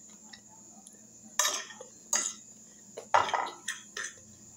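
A spoon scraping and clinking against a glass bowl of food. After a quiet start, several short scrapes and knocks come about a second and a half in and continue through the rest.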